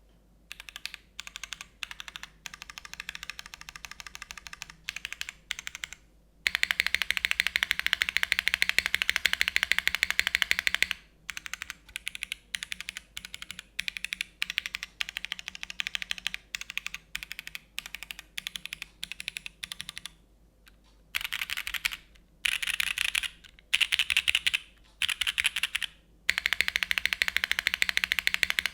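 Typing on a Kibou Suisei65 R3 mechanical keyboard with Cherry MX2A Black linear switches with OPBlack glass tops, a polypropylene plate and a top mount. Separate keystrokes alternate with dense, fast runs of typing, one starting about six seconds in and another near the end.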